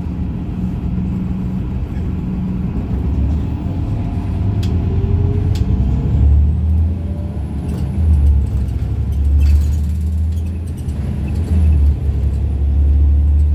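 Irisbus Citelis Line city bus with a Voith automatic gearbox, heard from on board: a steady low drivetrain rumble, with a faint whine rising in pitch about a third of the way in.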